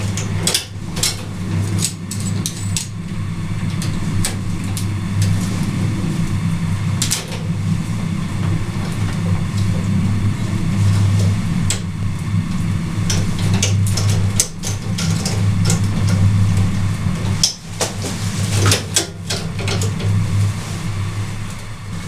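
A steady low mechanical hum throughout, with scattered clicks and light scrapes of wires and a metal conduit fitting being handled.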